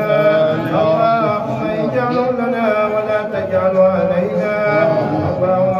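A man's voice chanting Quran recitation into a microphone, in long held notes that waver and bend in pitch.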